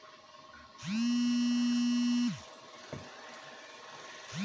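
A small electric motor whirring in bursts of about a second and a half: each burst spins up, holds one steady pitch, then winds down, and the bursts repeat every few seconds, one ending about two seconds in and the next starting near the end.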